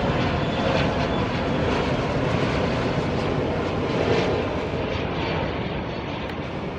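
Jet engines of a Boeing 747-400F freighter on final approach with gear down: a steady, even engine noise that eases off slightly in the second half.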